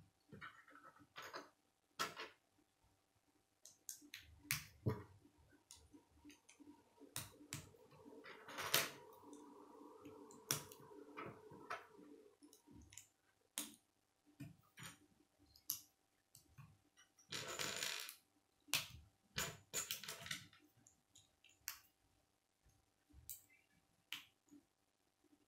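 Plastic K'nex rods and connectors clicking and snapping together as they are fitted by hand, with irregular sharp clicks and short stretches of plastic pieces rattling as they are handled.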